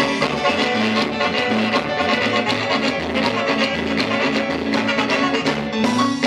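Lively Latin dance music playing for a huehues carnival dance, with a steady rhythmic beat.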